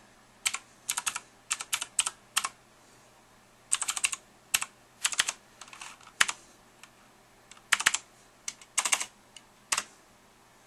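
Typing on a computer keyboard: single keystrokes and short quick runs of clicks, spaced irregularly with pauses between them.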